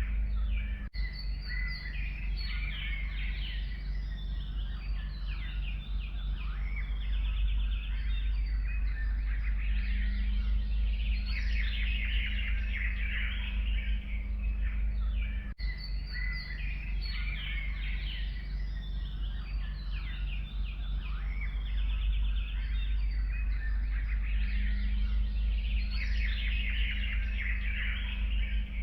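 A dense chorus of forest songbirds, many birds chirping and trilling at once, over a steady low rumble.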